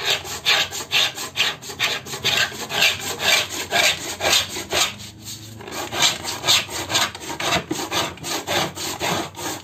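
Steel cutting pin of a wooden marking gauge scraping along the edge of a sunmica laminate sheet, scoring it to cut off a strip. It is a quick run of repeated rasping strokes, a few each second, with a short pause about five seconds in.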